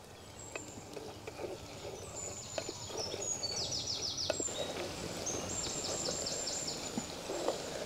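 A bird sings two runs of quick, repeated high notes, a few seconds in and again near the end. Under it, onions and green chillies fry quietly in oil in a clay pot, with a few light knocks of a wooden spatula against the pot.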